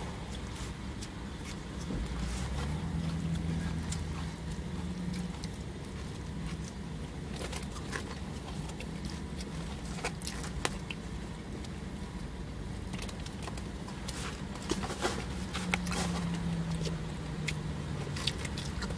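Steady low rumble of a car idling, heard from inside the cabin, with scattered light clicks of a plastic fork against a foam takeout container.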